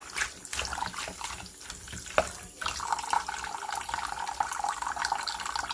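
Water running from a tap into a sink, with a few knocks and clatters in the first half, then a steady stream of running water from about halfway in.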